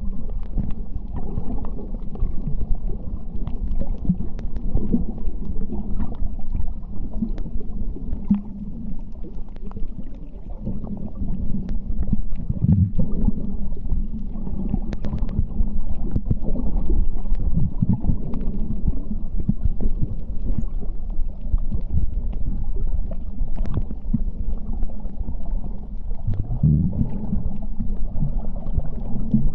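Muffled underwater rumble picked up by a camera in a waterproof housing on a coral reef dive, with scattered faint clicks and a few louder low swells.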